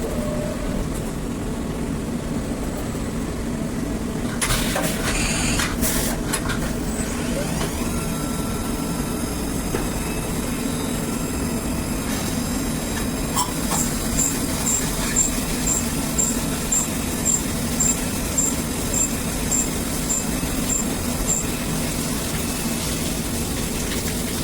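Hurco 5-axis CNC milling machine running with a steady low hum. About four and a half seconds in there is a short burst of hissing noise, and in the second half a run of short, high, evenly spaced ticks, about two a second.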